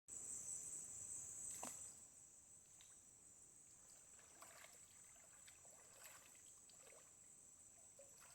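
Faint steady high-pitched drone of forest insects, with a few soft water splashes and knocks.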